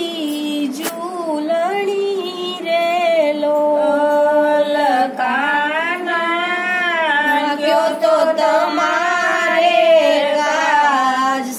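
A woman singing a Gujarati devotional bhajan unaccompanied, in long held notes with ornamented turns.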